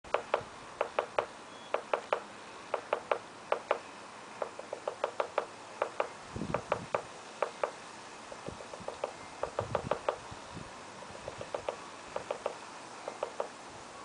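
Woodpecker pecking on an elm trunk: sharp wooden knocks in irregular clusters of two or three, growing fainter toward the end.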